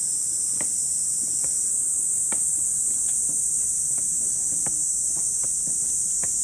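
Steady high-pitched insect chorus with scattered light clicks and taps.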